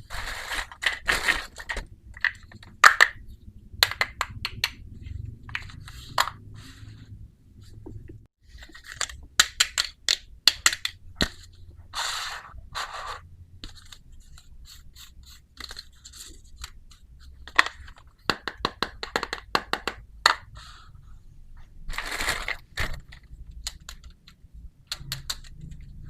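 Small plastic toy pieces of a miniature kitchen set being handled: irregular clicks, taps and scrapes in clusters of bursts, with gaps between them.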